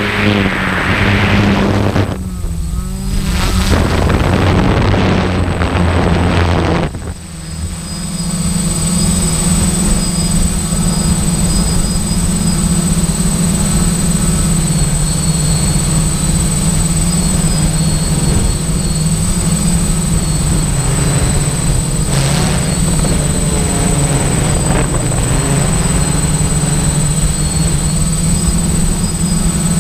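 A vehicle engine running steadily under a constant rush of noise, its note changing briefly about seven seconds in, then holding even.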